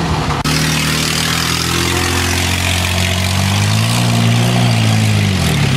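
Ford pickup truck engine revving as it drives through mud and slush, the pitch climbing to a peak and then easing off near the end, over a steady wash of tyre and mud noise. An abrupt break about half a second in.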